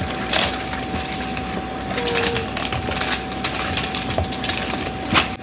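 Plastic wrapping crinkling and tearing as it is peeled off a Rainbocorns Wild Heart Surprise toy egg: a dense, continuous run of crackles.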